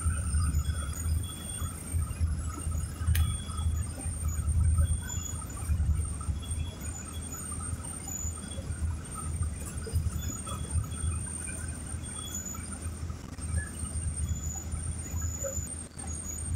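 Inside a moving city bus: a steady low rumble of engine and road, with faint high-pitched squeals that come and go.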